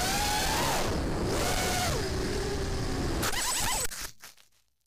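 FPV racing quadcopter's brushless motors and propellers whining, the pitch rising and falling with the throttle over a rush of wind, heard through the onboard action camera. A sudden knock comes a little over three seconds in, as the quad hits the ground and flips, and the motor sound then dies away.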